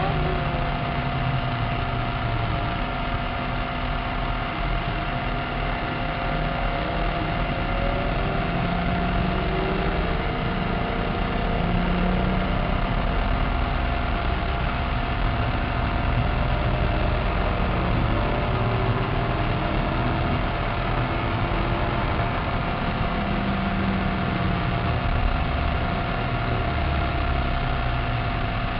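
Maserati Cambiocorsa's V8 engine and road noise heard from inside the cabin while lapping a race circuit, the engine note rising and falling with the revs.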